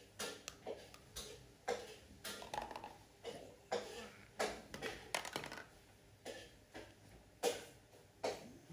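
Irregular light knocks and taps of a hard plastic toy bumping and scraping on a wooden bench as a baby monkey handles it, about one or two a second, with one sharper knock near the end.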